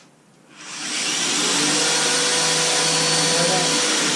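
Electric drill starting up about half a second in and running steadily at full speed as it bores a blind dowel hole into wood, its pitch just beginning to fall at the end.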